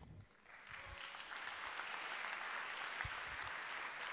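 Audience applauding steadily, the clapping starting about half a second in.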